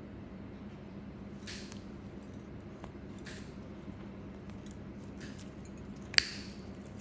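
A metal blade scraping a thickened toenail in a few short strokes, with one sharp click about six seconds in, over a steady low hum.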